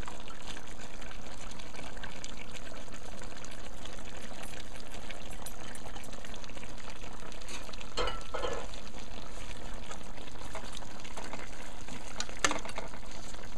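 A pot of mutton curry with potatoes simmering, a steady sizzle and bubble as its thick, reduced sauce cooks down.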